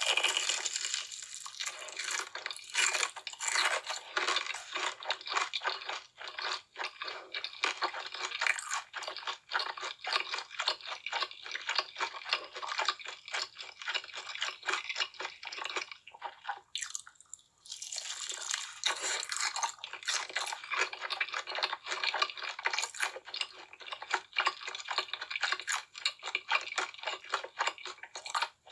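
Close-miked crunching and chewing of crispy fried chicken, a dense run of crackles that stops briefly about two-thirds of the way through and then resumes.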